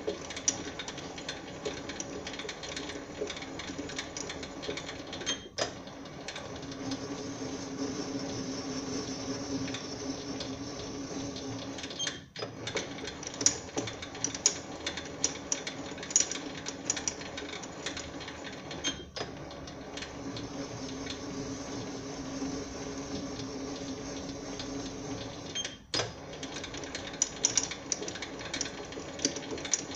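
SIEG SC4 bench lathe running while its threading tool cuts an M10 × 1.5 thread in steel: a steady machine hum with crackling from the cut and chips. The hum breaks off very briefly about every seven seconds.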